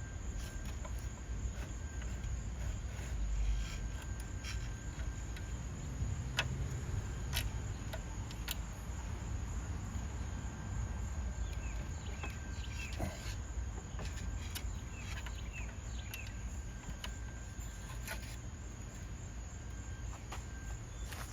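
Scattered light clicks and taps of window regulator parts and tools being handled, over a steady low hum and a thin, steady high-pitched whine.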